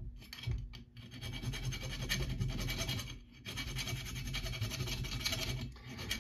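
Small hand file rasping on the tip of an engine valve stem, in two long runs of strokes with a short break about halfway. The file is taking the burrs off the stem so the valve can slide out through its guide.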